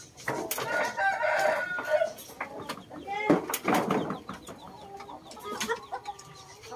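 Game chickens clucking, with a rooster crowing among them.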